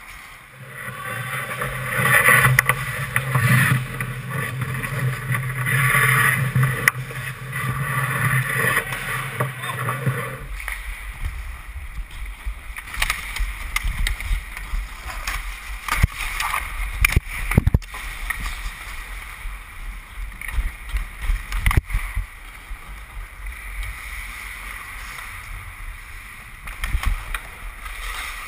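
Ice hockey heard from a GoPro on a player: a steady hum for the first ten seconds or so, then the low rumble of skating and air on the camera, broken by sharp clacks of sticks and puck, loudest at about 16, 17.5 and 22 seconds in.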